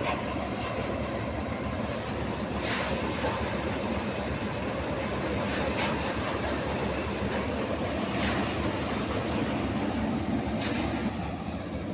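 Tractor-driven axial-flow paddy thresher running steadily while threshing rice, its drum noise mixed with the tractor engine's drone. A brief sharper swish rises over it every two to three seconds.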